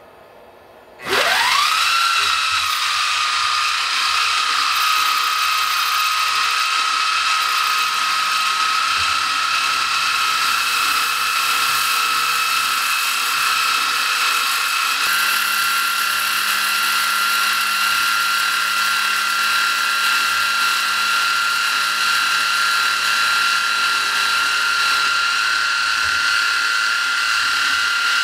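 CNC mill spindle spinning up with a rising whine about a second in, then running at a steady high whine as the end mill shaves the inside edge of a PCB ring. The pitch steps up slightly about halfway through and starts to fall at the very end as the spindle winds down.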